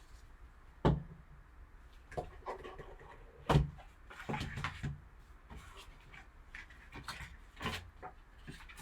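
Card box and its packaging being handled and opened by hand: rustling, with a few sharp knocks and taps.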